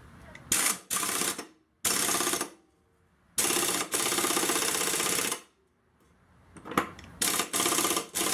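Power impact tool driving a 14 mm bolt on a walk-behind mower, hammering in four short bursts with pauses between; the third burst is the longest at about two seconds.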